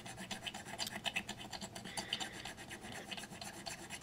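Fine steel file scraping in a quick run of short, faint strokes over a hardened A+B epoxy putty fill on the chipped edge of a ceramic plate, the fill almost planed down to the level of the glaze.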